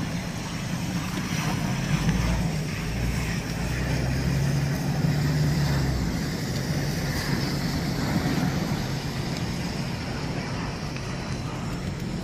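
A vehicle engine running with a steady low hum, under a continuous rushing noise.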